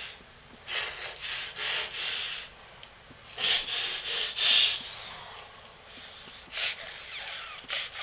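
A baby making a playful sniffling noise through her nose: two runs of quick, breathy sniffs, then a couple of single sniffs near the end.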